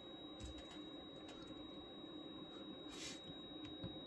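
Faint, steady high-pitched whine and low hum of powered electronic bench equipment, with a few small clicks and a brief soft rustle about three seconds in.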